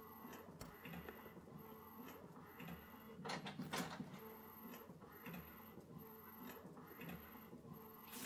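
Epson EcoTank ET-8550 inkjet printer printing a large photo, its print head shuttling back and forth in a quiet, even rhythm of faint clicks and soft thuds. A louder double clatter comes about three and a half seconds in.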